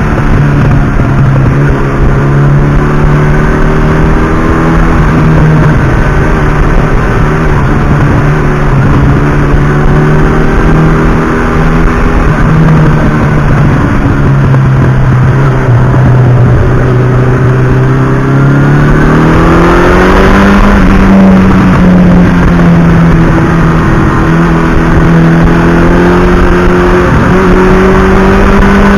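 Air-cooled inline-four engine of a 1982 Suzuki GS1100E motorcycle running under way at a steady cruising speed over a constant rushing noise. About two-thirds of the way through it accelerates, its pitch rising and holding higher.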